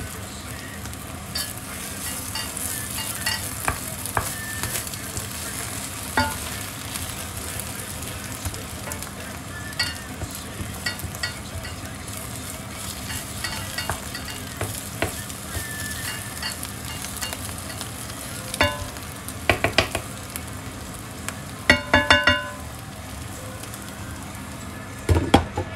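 A pan of chanterelles frying with a steady sizzle while a utensil stirs and clinks against the pan. In the last third come several quick runs of sharp metallic clinks.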